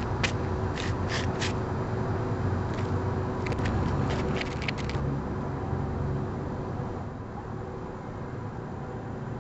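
A steady low rumble with a few sharp clicks in the first five seconds. It grows a little quieter over the last couple of seconds.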